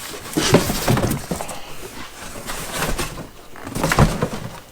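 Rustling and knocking of a cardboard shipping box and its packing being handled as an item is pulled out, with a louder thump about four seconds in.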